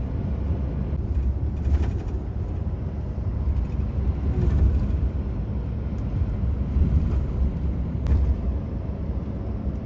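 Steady low engine and road rumble inside the cab of a moving lorry, with a few brief swells of noise above it.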